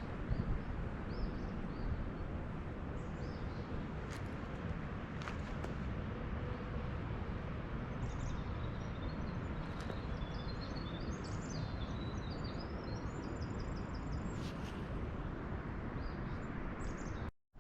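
Small songbirds chirping, with a run of quick trilled notes about two thirds of the way through, over a steady outdoor background hiss.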